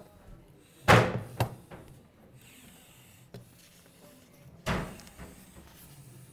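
Kitchen cupboard door being shut: a sharp bang about a second in with a smaller knock just after it, then another bang about four seconds later, over quiet kitchen room tone.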